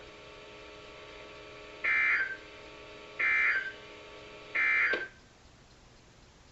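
NOAA Weather Radio EAS end-of-message signal: three short buzzing digital data bursts about 1.4 seconds apart, closing a severe thunderstorm warning broadcast, over faint radio hiss that drops away after the last burst.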